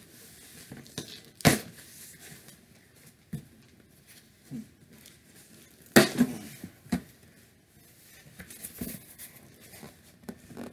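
A package being torn open and handled: two sharp rips or knocks about a second and a half in and about six seconds in, with quieter tearing and rustling of the packaging between.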